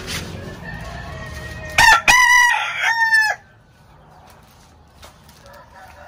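Gamecock rooster crowing once, about two seconds in, in a call lasting roughly a second and a half.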